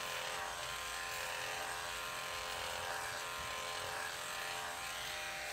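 Andis corded electric dog clippers running with a steady buzzing hum while trimming a Brussels Griffon's leg hair.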